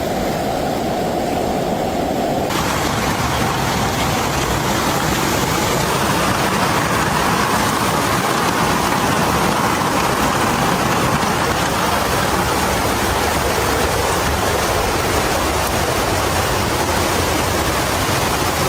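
Loud steady rushing of water. About two and a half seconds in, the sound changes abruptly and becomes brighter and hissier.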